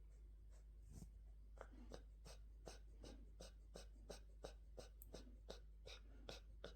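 Jindo dog snoring: a faint, quick, even run of short snuffling noises, about two or three a second, beginning about a second in.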